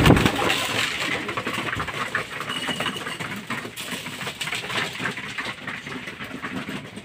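Racing pigeons' wings flapping loudly as one flutters in close at the start, then a flock pecking mixed seed off a concrete floor and from a metal tin, a dense patter of small quick ticks.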